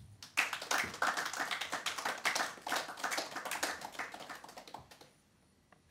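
A small group of people clapping their hands, starting just after the start and fading out after about four and a half seconds.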